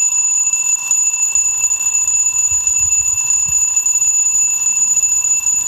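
Alarm clock ringing: one continuous, loud, high-pitched ring that does not let up.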